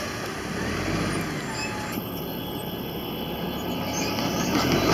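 Freight train's autorack cars rolling past with a steady rumble and rattle. Near the end, road traffic starts moving off and the sound grows louder.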